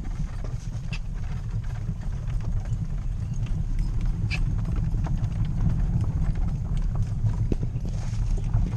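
Horse's hooves clip-clopping as it pulls a cidomo, a small horse-drawn cart, over a steady low rumble from the moving cart.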